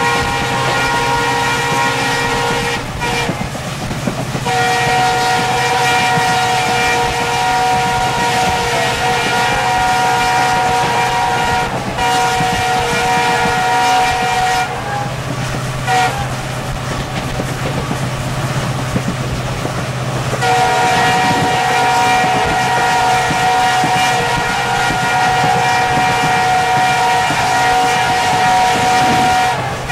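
Train's multi-tone locomotive horn sounding in long held blasts, broken briefly about three seconds in, with a short toot and a longer gap in the middle, heard from a moving coach of the same train. Under it runs the steady rumble of the train's wheels on the rails.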